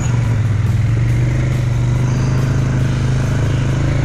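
Polaris 570 ATV's single-cylinder engine running at a steady cruise along a dirt trail, its pitch rising slightly in the first second and then holding even.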